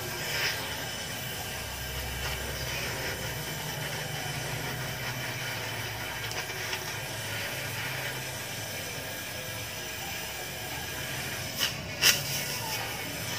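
Gas welding torch hissing steadily while a filler rod is melted onto a small exhaust part. Two sharp clicks near the end, the second the loudest sound.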